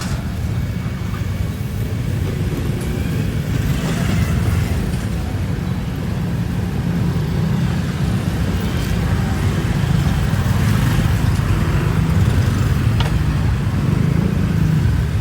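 Steady low rumble of street traffic, with faint scattered background sounds over it, slowly growing louder.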